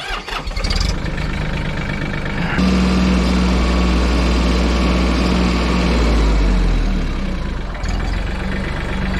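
Mahindra compact tractor's diesel engine running as the tractor is moved. The engine note steps up about two and a half seconds in and drops back again near the end.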